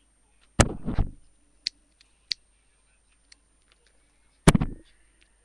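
A few loud thumps, two early on close together and one near the end, with two sharp clicks and a faint tick between them.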